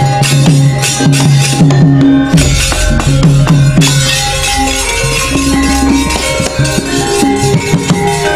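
Javanese gamelan playing an instrumental passage: sustained metallophone notes over quick kendang drum strokes that bend down in pitch.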